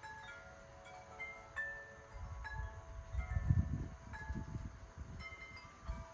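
Wind chimes ringing irregularly in gusty wind, several tubes sounding at different pitches and ringing on. Wind buffets the microphone with low rumbling gusts from about two seconds in, strongest in the middle.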